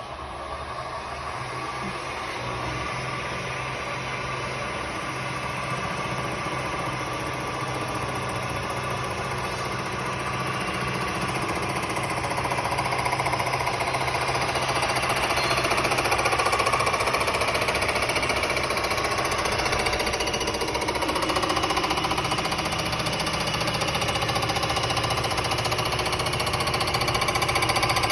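BM160 vertical boring and milling machine running its milling head under power feed: a steady machining noise with a low hum, growing gradually louder over the first half.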